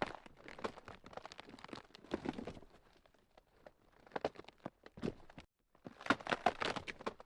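Ground cracking: dense, irregular crackles and snaps coming in clusters, with a brief total silence about five and a half seconds in.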